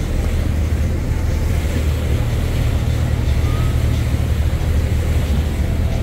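Tour boat's engine running steadily underway: a constant low rumble with a hiss of wind and water over it.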